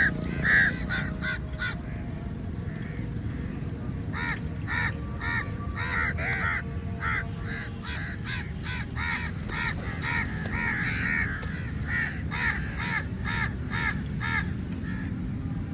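Crows cawing repeatedly: a few loud caws right at the start, then a dense run of overlapping caws, two or three a second, from about four seconds in until near the end, over a steady low background rumble.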